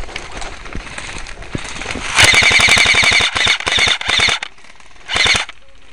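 Airsoft AK-74 rifle firing full-auto bursts: one long burst about two seconds in, two shorter ones right after it, and a last short burst near the end, each a fast, even rattle of shots.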